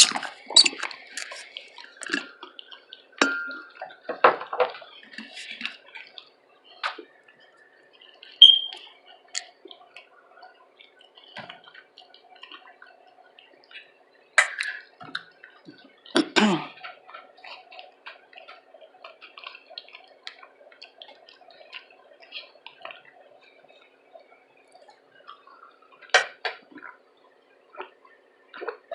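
A person eating close to the microphone: wet chewing, lip smacks and mouth clicks, scattered irregularly, with a faint steady hum underneath.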